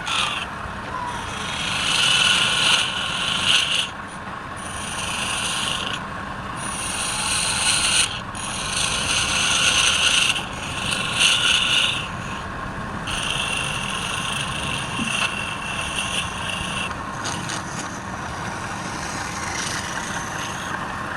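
Wood lathe running while a turning tool scrapes the spinning wood in repeated passes, each a few seconds long, over the machine's steady hum.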